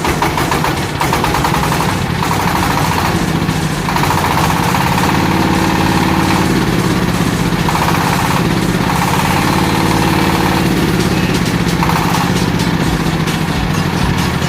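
Diesel engine of a mobile rice mill running steadily, with a higher whine that comes and goes several times over it.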